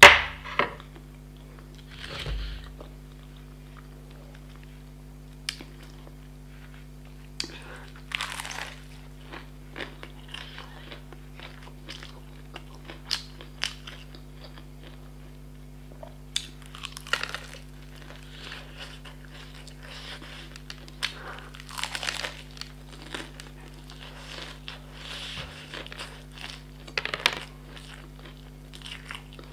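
Close-miked eating of crispy-coated fried chicken: repeated crunches of the breading as it is bitten, with chewing between, in several bouts. A sharp knock right at the start is the loudest sound, and a steady low hum runs underneath.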